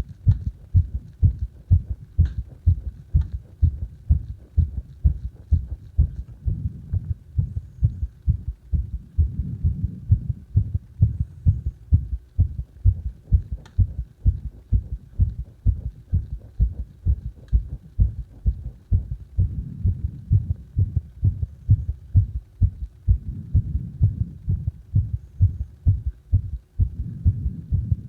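A human heartbeat heard close up: a fast, even run of low heart-sound beats.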